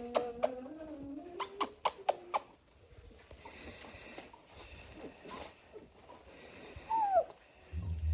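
German shorthaired pointer puppy whining in a wavering pitch for the first two seconds or so, with several sharp clicks, then faint snuffling and a short squeak that falls in pitch about seven seconds in; a low thump at the end.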